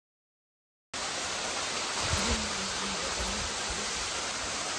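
Steady rush of a small waterfall, thin streams of water falling down a rock face into a pool. The sound cuts in abruptly about a second in, after silence.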